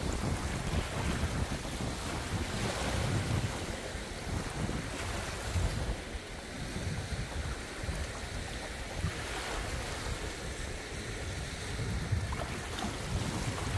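Wind buffeting the microphone, a steady rushing rumble that rises and falls in gusts.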